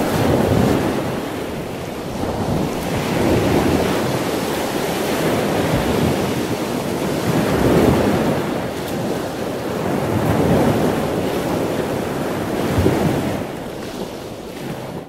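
Ocean surf breaking over rocks, a dense rush of white water that swells and eases every two to three seconds.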